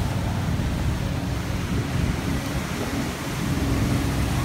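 Steady low rumble of wind and water noise on a boat on a lake, with a faint steady hum underneath.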